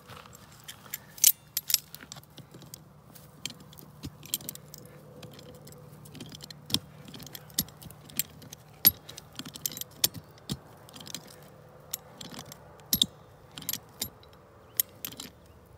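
Irregular metallic clicks and clinks of a wrench working the clamp that joins a bare copper grounding wire to a ground rod.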